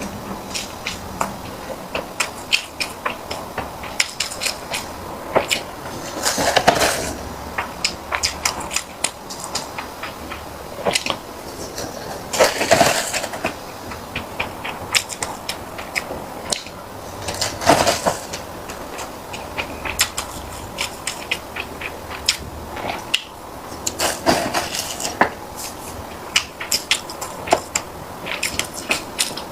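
Close-miked eating sounds from a person chewing sticky food: a steady run of small wet clicks and smacks. About every five or six seconds comes a louder, noisier sound lasting about half a second.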